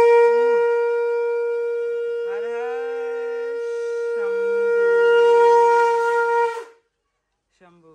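Conch shell (shankh) blown in one long, steady note of about seven seconds. It swells louder near the end, then cuts off.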